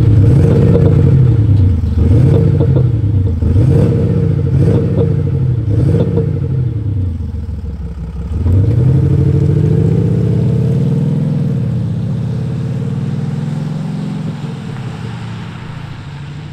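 Mercedes-Benz GLE 350d diesel SUV's engine note, boosted through aftermarket Active Sound generators at the rear to imitate a deep V8 burble. The revs climb and drop repeatedly, then one longer pull starts about halfway through and the sound slowly fades as the car drives away.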